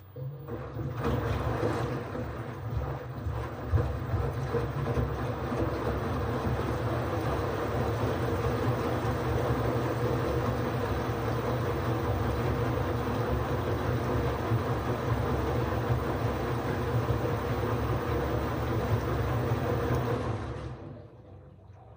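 LG FH0B8LD7 front-loading washing machine running: a steady motor drone with a low rumble and a constant whine. It starts suddenly and dies away about 21 seconds in.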